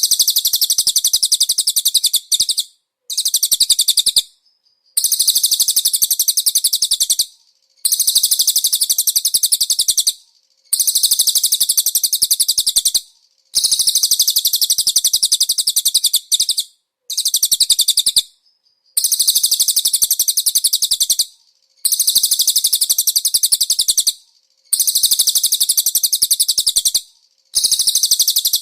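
Cililin song played as a tutor recording for white-eyes: loud, very high-pitched rapid trills in phrases of about two seconds, each split off by a short pause and repeated over and over.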